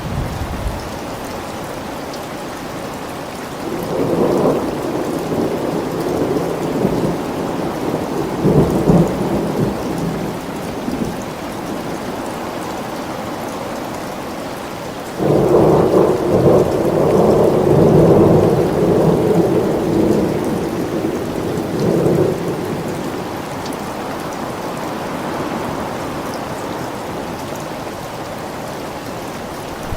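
Steady rain with thunder rumbling twice: first from about four seconds in, then a louder, longer rumble that breaks in suddenly about fifteen seconds in and fades after about eight seconds.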